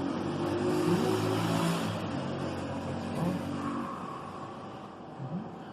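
A motor vehicle's engine running and revving up and down, fading away over the last seconds.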